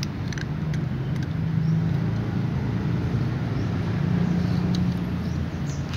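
Steady low hum of a motor vehicle running nearby, swelling in the middle and easing near the end, with a few light clicks.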